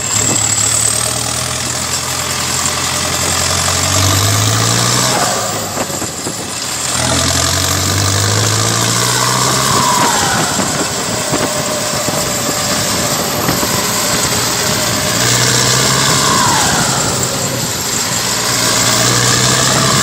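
Turbocharged diesel engine of a Belarus MTZ-82.1 tractor heard from inside the cab while driving, with a high whistle over it. The engine note climbs several times as it revs up, dipping briefly about six seconds in.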